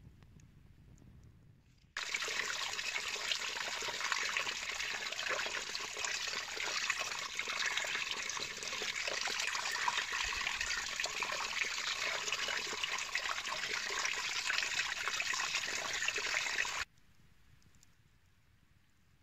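Spring water splashing down over rocks and running through a cup into a copper Turkish coffee pot, a steady, even splashing that starts abruptly about two seconds in and stops abruptly a couple of seconds before the end.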